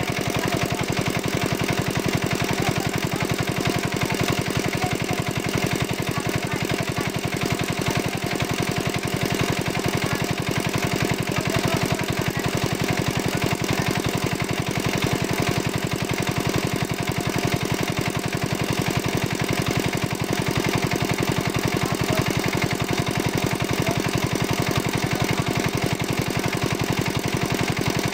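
Small engine-driven water pump running steadily at constant speed with a fast, even chug, pumping water out through a hose to drain a pond.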